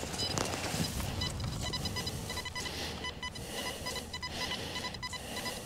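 XP Deus metal detector beeping in a quick run of short, high-pitched tones as its coil passes over a target in the dug hole, a signal the detectorist reads as a large piece of lead.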